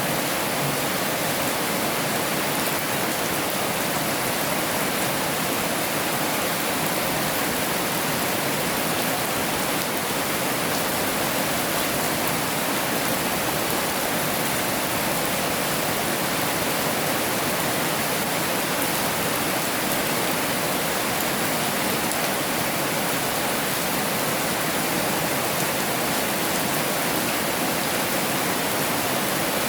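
Heavy rain falling in a steady, even hiss, with no distinct drops, thunder or other events.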